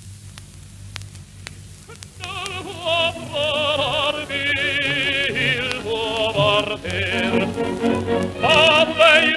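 Operatic singing with wide vibrato over orchestral accompaniment, coming in about two seconds in, played from an old acetate disc. Before it, the disc's surface clicks and crackle are heard.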